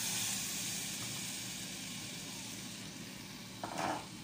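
Hot pan of sautéed mushrooms sizzling and hissing as a cream sauce is poured in, the hiss slowly dying down as the liquid cools the pan. A short scuffing noise comes near the end.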